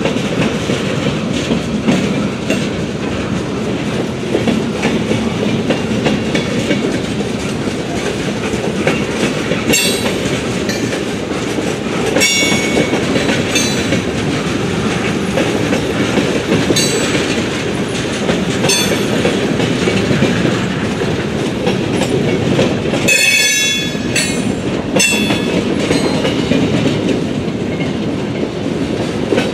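Freight cars rolling past on jointed track: a steady rumble of steel wheels on rail with clickety-clack. Brief high squeals from the wheels come and go several times, loudest about 23 seconds in.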